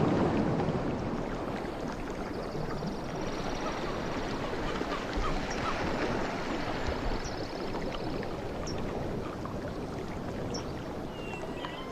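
Sea waves washing on a shore: a wave subsides at the start, the surf wash stays steady, and the next wave starts to build at the very end. Faint high bird chirps and trills sound over it.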